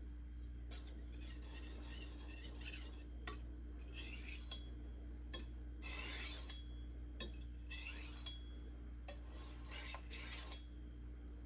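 BD1N steel knife blade being stroked across a hard Juuma Cobalt Blue waterstone: a run of uneven scraping passes, the loudest about six and ten seconds in.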